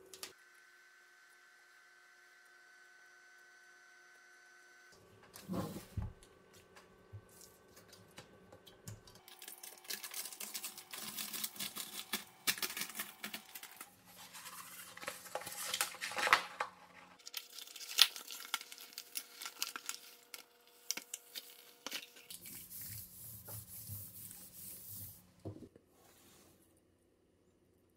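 Hand-work noises on a lithium battery pack. A single knock comes about six seconds in. Then from about ten seconds, there are long stretches of scratchy rustling and tearing with small clicks, and a sharp click partway through.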